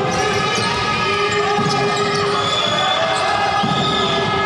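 Basketball game sounds on a hardwood court: the ball being dribbled, short shoe squeaks, and crowd voices filling the hall underneath.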